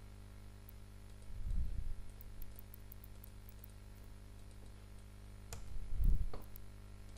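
Computer keyboard and mouse being worked, picked up by the desk microphone: a dull thump about a second and a half in and a louder one with sharp clicks about six seconds in, over a steady low electrical hum.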